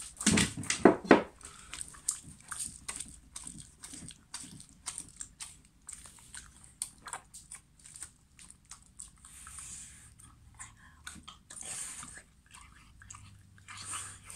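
Shiba Inu eating wet meat food from a ceramic bowl: a steady run of wet lapping, smacking and chewing clicks. A few louder knocks come in the first second or so.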